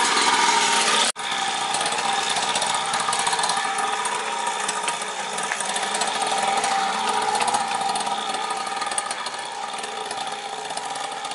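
Small two-stroke engine of a 49cc mini dirt bike idling steadily after a pull start, with a brief break about a second in.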